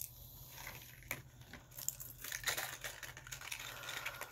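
Clear plastic lure packaging crinkling and crackling with sharp clicks as it is handled, sparse at first and busier from about halfway in.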